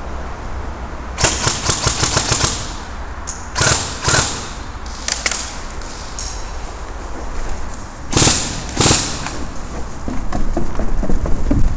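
Airsoft rifle firing a rapid full-auto burst about a second in, lasting about a second and a half, followed by a few shorter bursts or sharp bangs around four seconds and eight to nine seconds in.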